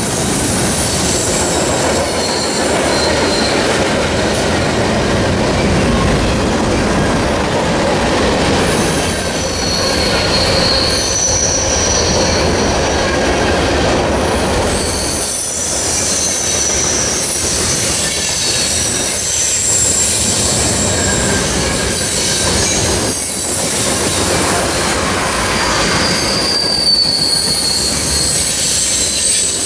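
A heavy CSX freight train's covered hoppers and tank cars roll past close by, with a loud, steady noise of steel wheels on rail. High-pitched wheel squeal comes and goes, starting about nine seconds in and returning several times.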